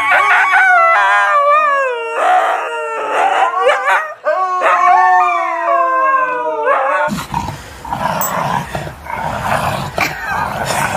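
Husky-type dogs howling: long, wavering howls that rise and fall, more than one voice at a time. About seven seconds in they give way abruptly to a rougher, noisier sound.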